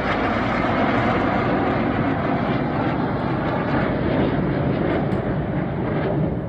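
Jet engines of the Red Arrows' BAE Hawk T1 formation: a loud steady rush of jet noise as the formation passes, its hiss thinning about four seconds in as the jets draw away.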